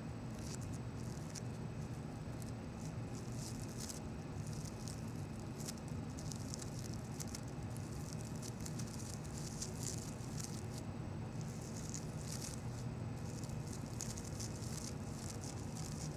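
Fingers rustling and crinkling through a bouquet of fresh roses and carnations held close to the microphone: soft, irregular crackling with a couple of short pauses, over a steady low hum.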